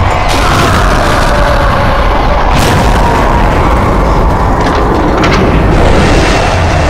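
Explosion sound effects: a continuous deep, booming rumble, with sharp blasts about two and a half seconds in and again around five seconds in.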